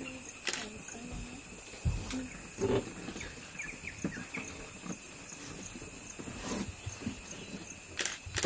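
Forest ambience: insects droning steadily at two high pitches, with scattered short low sounds and a few sharp clicks, about half a second in and twice near the end.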